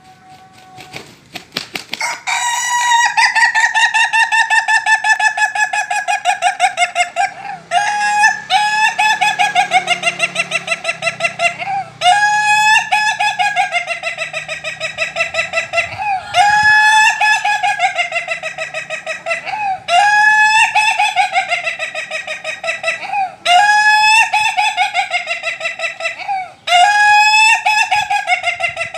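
Ayam ketawa (laughing chicken) rooster giving its long laughing crow over and over, starting about two seconds in. There are about seven calls of several seconds each, every one a fast stuttering run of notes, separated by short breaks.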